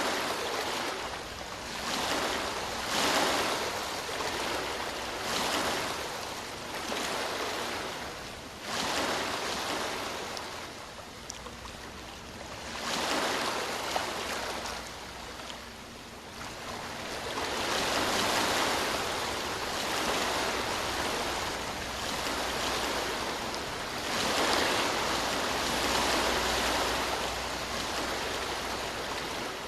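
Ocean surf: waves breaking and washing in one after another, the rush of water swelling and fading every few seconds.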